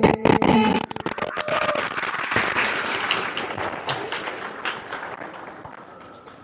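Audience applauding at the end of a group song: the last sung note breaks off under a second in, and the clapping then dies away over the next few seconds.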